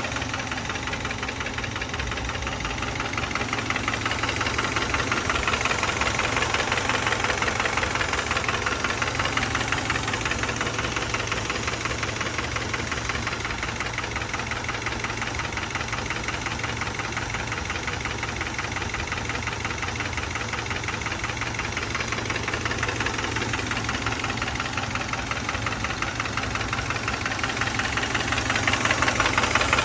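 2012 Subaru Outback's boxer engine running near idle with a fast, even knocking from the engine, which the owner takes for engine knock. The engine gets a little louder a few seconds in and again near the end.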